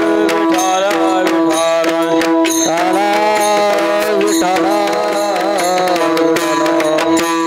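Marathi devotional abhang music: a voice singing a bending, ornamented melody over a steady held drone tone, with pakhawaj drum strokes keeping the beat.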